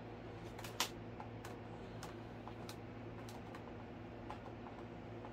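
Scattered light clicks and taps of a screwdriver and plastic parts being handled as a wing screw is driven into the fuselage of a foam RC jet, with one sharper click about a second in, over a steady low hum.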